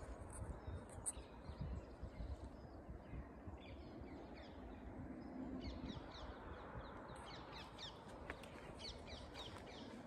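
Wild birds calling: a few thin, very high calls near the start, then from about four seconds in a rapid run of short, high, falling chirps, over a low rumble.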